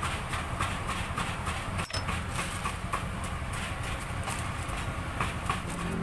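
Knife sawing through a loaf of soft white bread down to a wooden cutting board, in quick even strokes about three a second, over a steady low rumble.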